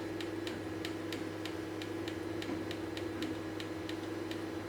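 3D printer running: a steady hum with regular sharp ticks, about three to four a second.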